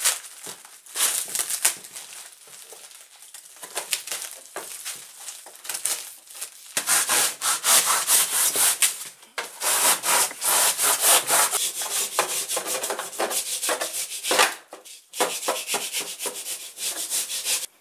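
Cured polyurethane pouring foam being sawn through with a long blade in quick back-and-forth rasping strokes, getting steady and continuous from about seven seconds in. At the start, plastic sheeting rustles as it is pulled off the foam.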